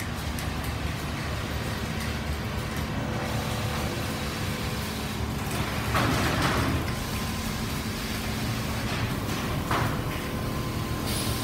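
Steady machinery din of a quilting factory floor with quilting machines running: a low hum carrying faint steady tones. Two brief, louder hissing sounds stand out about six and ten seconds in.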